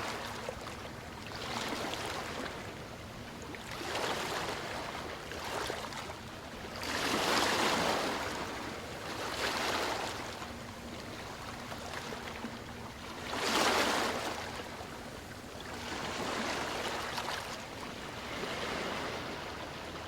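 Surf breaking and washing up a sandy beach, the rushing hiss of water swelling and fading every two to three seconds. Two waves, about a third and two thirds of the way through, are louder than the rest.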